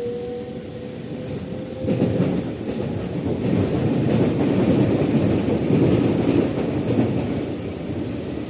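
Metro train running on its track, heard from the carriage: a faint whine rising slightly in pitch for the first couple of seconds, then the rumble of the wheels swells about two seconds in, with a few clacks, and eases near the end.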